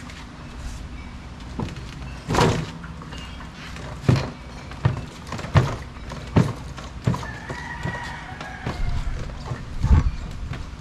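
About eight dull thumps and knocks, irregularly spaced and the loudest near the end, from a Yamaha Aerox scooter as a rider climbs on and settles onto the seat, loading the newly fitted YSS G Sport rear shocks to test them.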